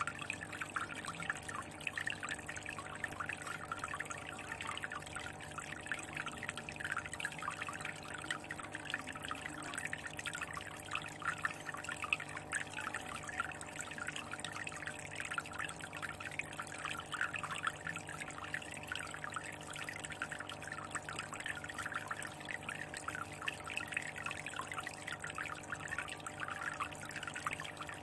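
Continuous trickle of water splashing into an aquarium from a spout, steady and even, with a faint steady hum underneath.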